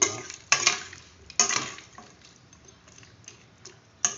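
Metal spatula scraping and knocking against a stainless steel pot while stirring simmering chicken feet in sauce: three loud strokes in the first two seconds, then faint light ticks and one sharper click near the end.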